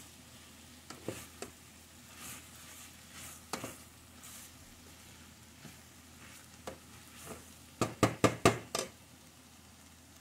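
Chicharrón pork filling sizzling quietly in a steel pot while a wooden spatula stirs and scrapes through it. About eight seconds in there is a quick run of four or five sharp knocks of the spatula against the pot. The pork is fully cooked and only lightly browned.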